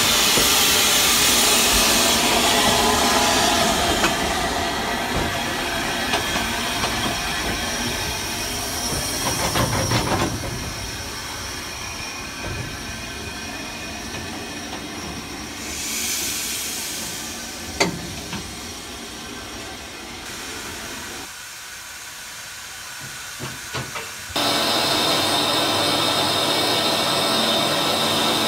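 Steam hissing from standing Maunsell steam locomotives, in several shots that cut abruptly from one to the next; the hiss is loudest in the first few seconds and again in the last four. A few single sharp knocks come through, the clearest about eighteen seconds in.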